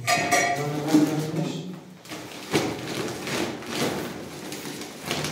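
A thin plastic tablecloth crinkling and rustling as it is pulled out and unfolded by hand, with a few light taps.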